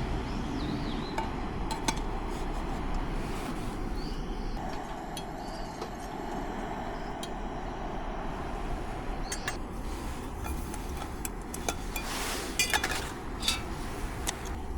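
Metal cookware and utensils clinking and knocking now and then over a steady low hiss, with a few sharper clinks near the end, while vegetables are boiled for soup over a campfire.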